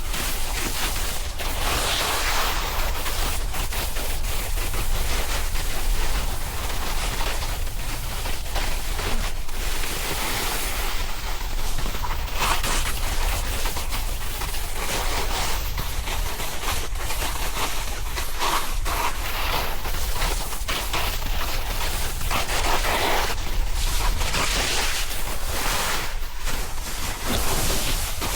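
Snowboard sliding over snow: a steady scraping hiss broken by many irregular sharp clatters as the board chatters over the surface, with wind rushing on the microphone.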